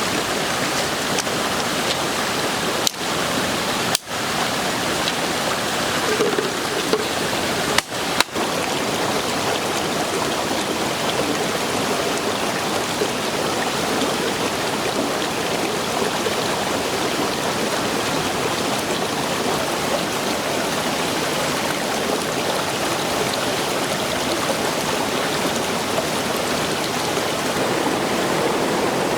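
Steady rushing of running water, an even hiss with no pitch, cutting out briefly a few times near the start.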